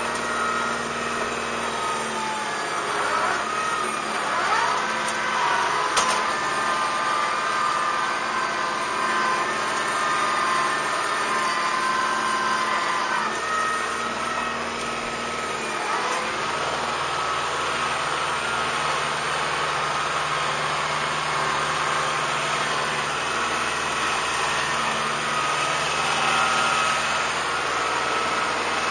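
Kubota M5140 tractor's diesel engine running steadily while working a loaded box blade across dirt, its note dipping and recovering a couple of times as the load changes. There is one sharp knock about six seconds in.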